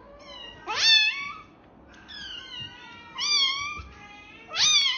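Kittens meowing over and over in high-pitched calls, about five meows, several of them sliding up in pitch as they begin.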